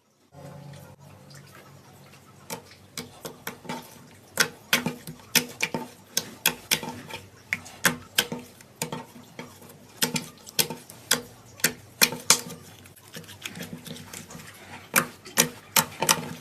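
Slime being squeezed and poked by hand, making a quick, irregular run of sharp sticky clicks and pops, about two or three a second.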